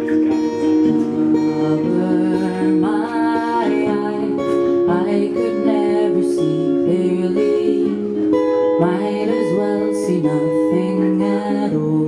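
A live song: an acoustic guitar is strummed while a woman sings.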